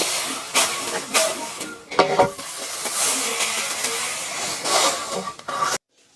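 Dry rice stalks rustling and swishing in repeated short strokes, with a dull thud about two seconds in and a steadier stretch of rustling after it. It cuts off suddenly near the end.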